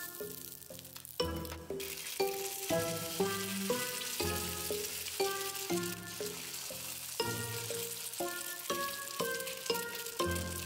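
Eggs frying in a hot aluminium stovetop waffle pan: a steady sizzle, over background music with evenly paced notes.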